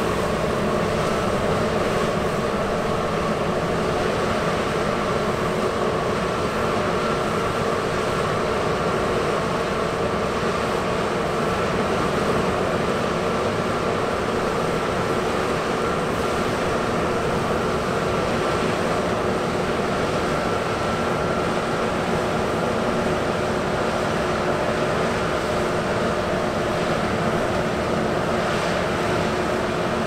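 John Deere T670i combine harvester running steadily as it cuts oats: a continuous engine and machinery drone with a thin, steady whine over it.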